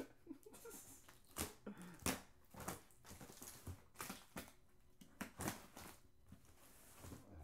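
Cardboard box and paper packaging being opened and rummaged through: irregular rustling and crinkling, with several louder, sharper bursts.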